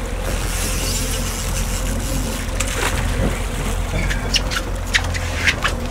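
A trolling boat's engine runs steadily under the even wash of water along the hull. About four seconds in come several short, sharp splashes and knocks as a brown trout is lifted from the water in a landing net.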